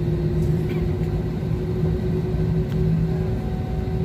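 Passenger-cabin noise of a jet airliner: a steady low rumble with an even, unchanging drone of the engines and air system.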